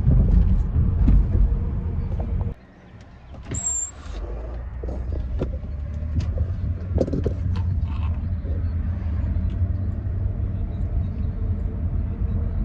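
Low rumble of a car driving, heard from inside the car. It drops away briefly about two and a half seconds in, a short high tone sounds just after, and the rumble then runs on steadily with a few light clicks.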